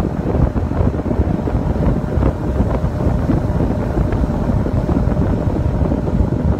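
Wind buffeting the phone's microphone on a bass boat running at speed, with the boat's motor and water noise underneath, loud and steady.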